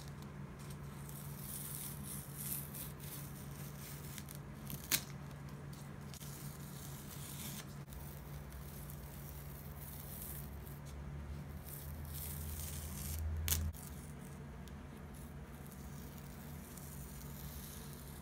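Masking tape being peeled off the edges of a watercolour sheet, heard as a faint tearing rustle in several stretches. Two sharp clicks come about five seconds in and near thirteen and a half seconds in.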